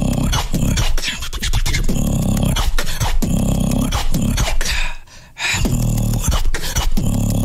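Solo human beatboxing: a beat of deep bass notes about once a second, with sharp mouth-made snare and hi-hat clicks between them. There is a short break about five seconds in, then the beat picks up again.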